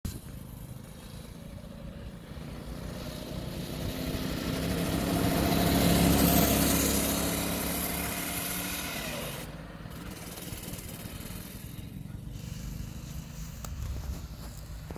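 A small motor vehicle's engine running as it comes closer, is loudest about six seconds in, then moves away. Its pitch drops slightly as it recedes.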